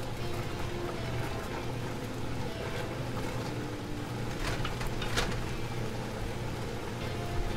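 Wooden spatula stirring and tossing noodles and vegetables in a large cooking pot, with a few sharp knocks against the pot about four and a half to five seconds in, over a steady low hum.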